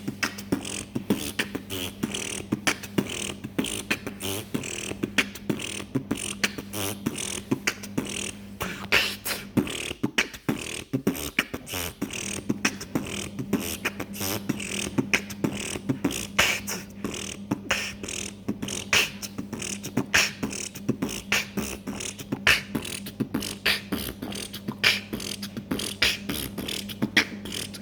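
Beatboxing: a fast, unbroken stream of vocal percussion, with mouth-made kicks, snares and clicks in a tight rhythm.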